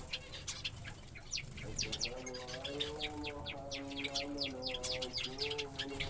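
Small cage birds, finches and Java sparrows, chirping rapidly, with many short calls overlapping one another. Under them runs a steady humming tone that bends in pitch a couple of times.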